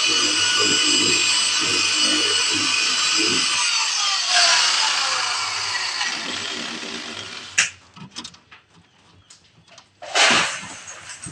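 Handheld electric power tool running with a steady high whine, then switched off about four seconds in, its pitch falling as it spins down. A few clicks and knocks follow, and a short loud scrape of noise comes near the end.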